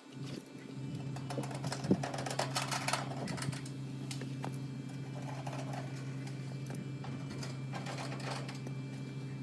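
Air conditioner condenser unit running with a steady electrical hum, its fan motor turning again on a newly fitted run capacitor. The hum starts about half a second in, with light clicks and rattles over it.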